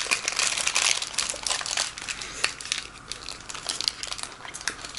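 Paper burger wrapper crinkling in the hands while a wasabi shrimp burger is bitten and chewed, a dense crackling that starts suddenly and is heaviest in the first two seconds.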